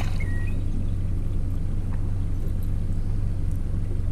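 Boat motor running steadily at low speed with an even low hum. A short high chirp comes near the start.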